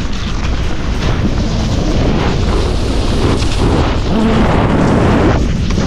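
Heavy wind noise buffeting the microphone while a skier glides fast down a snowy trail on cross-country skis, a dense rumble with no breaks. A faint steady low tone joins about four seconds in.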